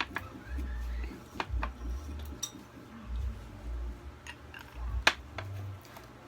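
Eating sounds at a table: scattered sharp clicks and clinks, the loudest right at the start and about five seconds in, over low intermittent thumps.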